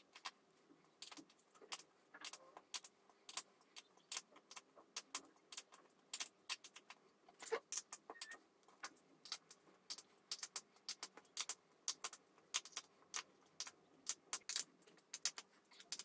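Irregular run of small, sharp metallic clicks, about two to three a second, as a threaded metal insert is turned by hand into a drilled hole in an MDF desktop, tightening as it goes.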